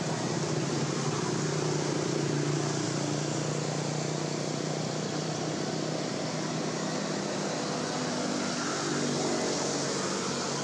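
Steady low engine hum over an even hiss, holding constant throughout.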